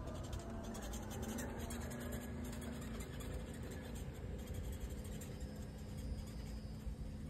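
Wind rumbling and scratching across the microphone, with a faint steady hum underneath.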